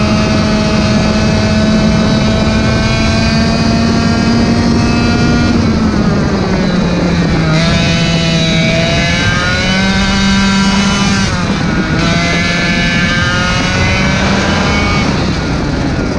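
Racing kart engine running hard: its pitch climbs steadily for about five seconds, drops, then rises and falls again and again through the bends.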